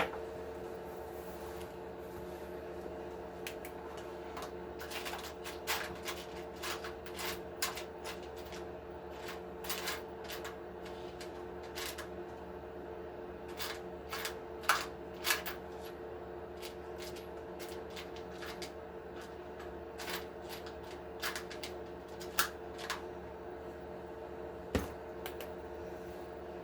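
Small parts being rummaged through by hand while searching for a 1 mm shim: irregular light clicks and rattles of small hardware being picked through, over a steady background hum.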